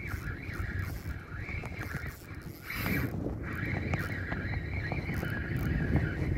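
Spinning fishing reel being cranked, its gears giving a wavering whir, over wind buffeting the microphone.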